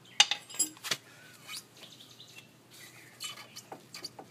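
Scattered sharp metallic clinks and knocks of a steel pry bar working against the suspension as the lower control arm's front bushing is pried forward out of its mount.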